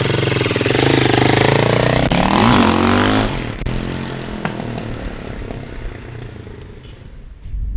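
Honda S2000's four-cylinder engine revving hard as the car pulls away, its pitch climbing and falling over the first three seconds, then fading into the distance.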